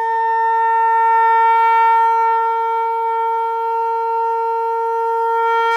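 One long blown note on a wind instrument, held loud and steady in pitch.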